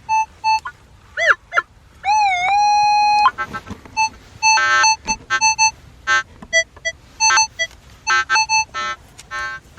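Metal detector's target tones: repeated short electronic beeps at several pitches as the coil sweeps over a signal, with a swooping tone about two seconds in that settles into a held tone for about a second.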